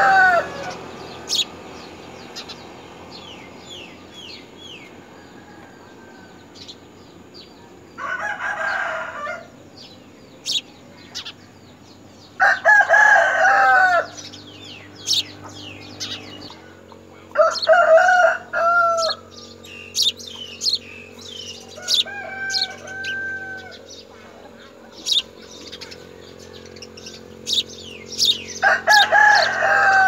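A rooster crowing several times, each crow about a second long, over many short, high house sparrow chirps from the nest.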